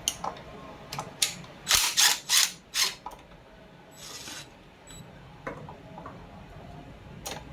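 Socket ratchet wrench clicking in several short strokes, working loose the 12 mm intake manifold bolts. A brief rasp follows about four seconds in, and another click near the end.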